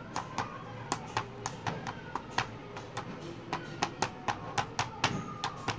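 Small irregular clicks and taps, a few a second, from a round metal ring cutter being pressed and worked through a thick raw potato slice on a plastic cutting board, with a knife pushing down on the cutter.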